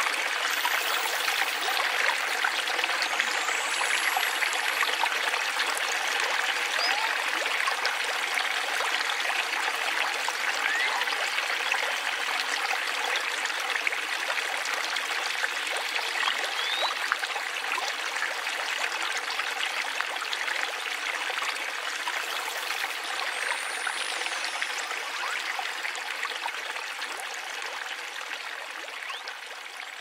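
Small garden waterfall trickling and splashing steadily over stone steps into a shallow rocky stream bed. It fades out gradually near the end.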